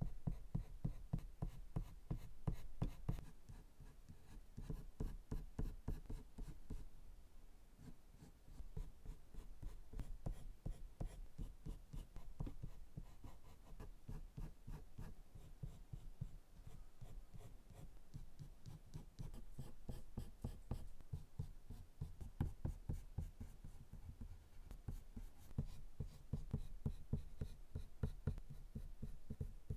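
Colored pencil scratching on drawing paper in quick, short repeated strokes as fur is shaded.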